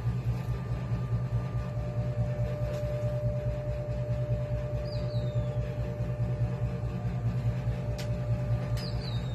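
Steady low mechanical hum of shop machinery with a faint steady whine above it, and two brief high chirps, about halfway and near the end.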